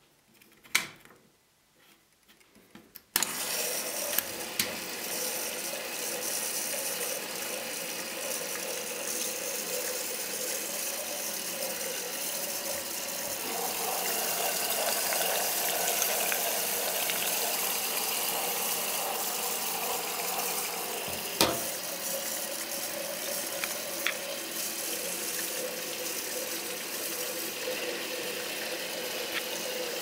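The program dial of a 1964 Miele Automatic 416 washing machine clicks as it is turned. About three seconds in, water suddenly starts rushing into the machine through the detergent dispenser and keeps flowing steadily with a hiss as it fills for the pre-wash. One sharp click comes later on.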